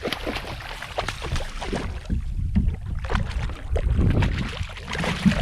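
Wind rumbling on the microphone, with water sounds and scattered short knocks around a fishing kayak.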